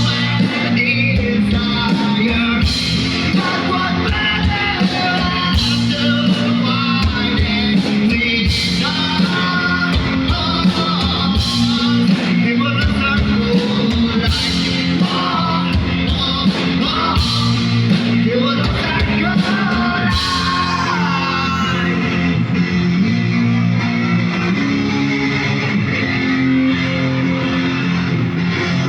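Rock band playing a song: electric guitar and bass guitar with a singer's voice and a steady beat.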